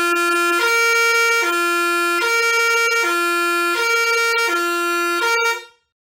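Basuri six-trumpet musical air horn sounding a two-note high-low tone: two notes alternating about every three-quarters of a second over a steady higher tone, cutting off near the end.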